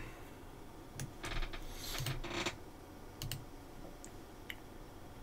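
Faint, scattered keystrokes and clicks on a computer keyboard and mouse: a cluster of them between about one and two and a half seconds in, then two sharp clicks a little after three seconds.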